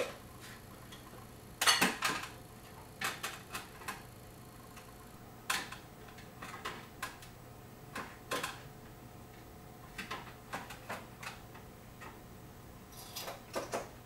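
Light clicks and knocks at irregular intervals, some in quick pairs or triples, from hands working at the back of a plasma TV. A faint steady hum runs underneath.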